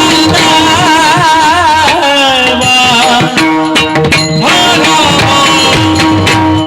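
A singer holding long, wavering, ornamented notes over steady sustained accompaniment, with drum strokes joining about halfway through.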